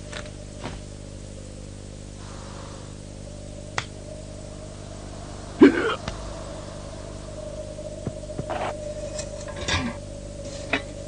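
Sparse animated-film soundtrack: a faint steady hum with a few short clicks and brief sound effects, the loudest a short pitched sound about halfway through.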